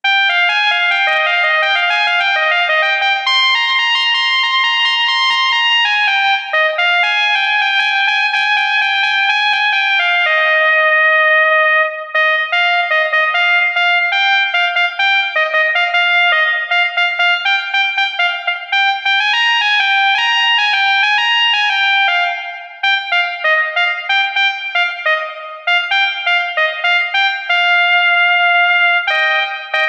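Basuri telolet horn, a set of electric multi-tone air horns, playing a melody of stepping notes, often two or three sounding together. It holds notes steadily at first and plays choppier, separately sounded notes from about twelve seconds in.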